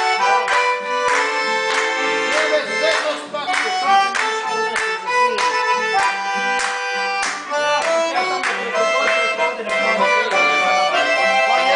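Lively live folk music: a strummed guitar and a melody of long held notes, with several people clapping their hands in time to the beat.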